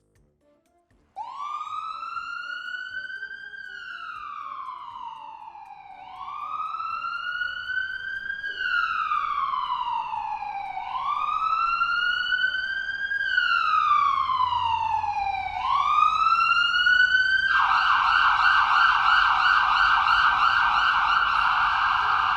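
Electronic emergency-vehicle siren: after about a second of quiet it starts a slow wail, four long rises and falls in pitch, then switches late on to a fast yelp. It grows louder as it goes.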